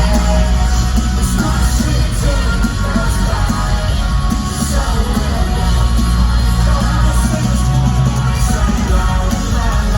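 Loud live rock music over a concert PA, with heavy bass, electric guitars and vocals.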